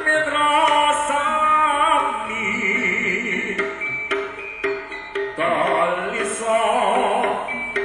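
Live jaranan gamelan music: drum strokes and repeated gong-chime tones under a wavering sung melody.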